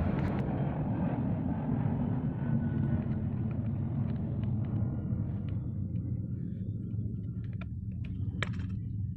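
A steady low rumble that slowly fades, with a few sharp light clicks near the end as a screwdriver works at a bolt on a brush cutter's engine housing.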